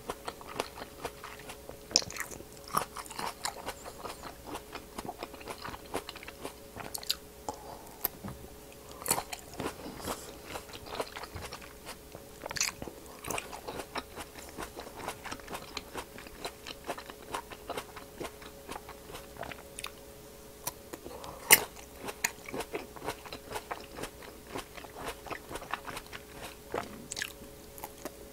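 Black grapes being bitten and chewed close to a lapel microphone: a steady run of irregular sharp clicks, with one much louder pop about three-quarters of the way through. A faint steady hum sits underneath.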